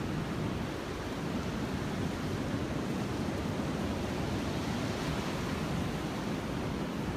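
Steady wind noise on a smartphone's microphone, mixed with the wash of breaking ocean surf.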